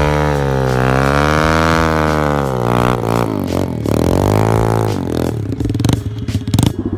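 2004 Suzuki DRZ110 pit bike's single-cylinder four-stroke engine revving hard, its pitch rising and falling as the rear wheel spins for grip in deep snow, close to the rev limiter. About five seconds in the revs drop to low, uneven running with a few knocks.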